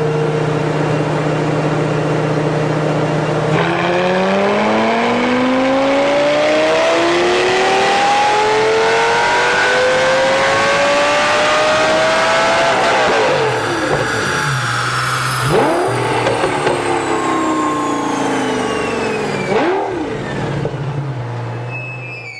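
Lamborghini engine on a chassis dynamometer doing a power run: running steadily at first, then a long full-throttle pull with the pitch rising for about nine seconds. It then lifts off and winds down, the pitch falling, with two brief dips in the note on the way down.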